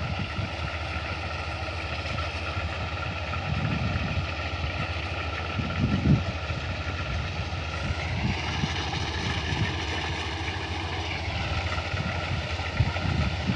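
Kubota DC-35 combine harvester running steadily, a mechanical hum with a whine. About two-thirds of the way through the whine steps up in pitch, holds for about three seconds, then drops back, with a few short low rumbles along the way.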